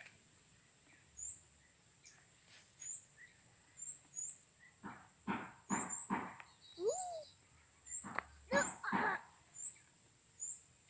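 Outdoor animal calls: a steady high-pitched whine with short chirps repeating every half second or so. Near the middle come a few short, sharp, louder calls and one call that rises and then falls in pitch.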